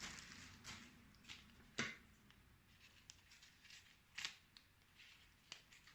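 Faint handling of a small screen-protector package being opened: a few sharp clicks and short rustles, the loudest about two and four seconds in.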